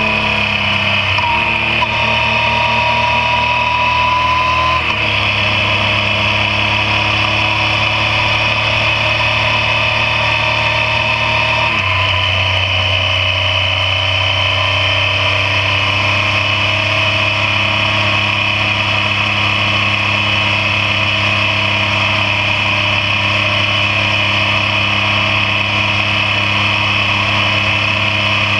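Yamaha MT-09 three-cylinder engine running as the motorcycle cruises along. The engine note steps to a new pitch about five seconds in and again about twelve seconds in, with a faint rising whine during the first few seconds.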